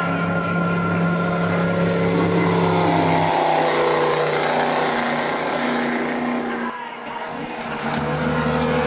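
Outboard engines of waterski racing boats running at full speed, a loud steady engine note. The note changes about three seconds in and arcs in pitch as a boat passes. It drops briefly near the end before another boat's engines come in.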